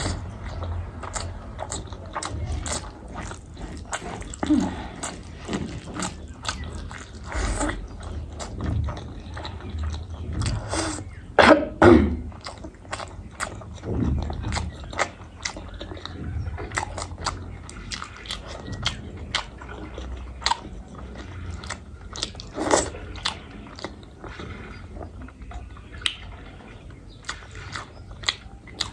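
A person chewing and eating close to the microphone, with many short, sharp wet mouth clicks and smacks, and a louder throaty burst about twelve seconds in.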